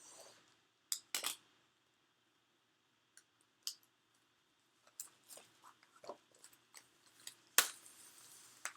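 Packaging being handled and unwrapped: scattered crinkles and clicks, with a longer crinkling rustle and one sharp snap in the last second or so.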